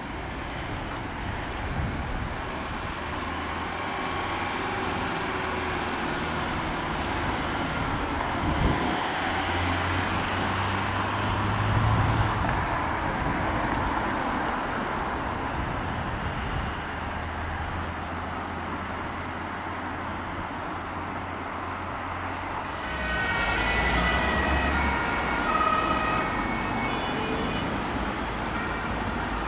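Road traffic: engines and tyres of vehicles passing, with low engine hum swelling and fading. In the last few seconds a German two-tone emergency siren (Martinshorn) comes in, stepping between two pitches as an emergency vehicle approaches.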